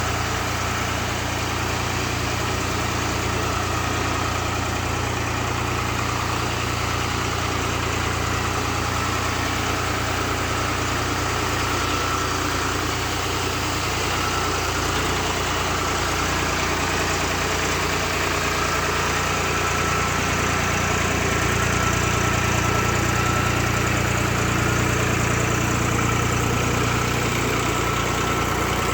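Tractor engine running steadily while driving a solar-panel washing machine, getting slightly louder about two-thirds of the way through.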